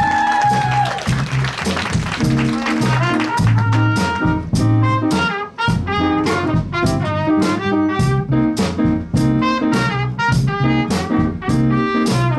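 Jazz big band playing with trumpets, saxophones and trombones. A held high horn note ends about a second in. The horns then play punchy chords over a moving bass line, with drum hits keeping a steady beat.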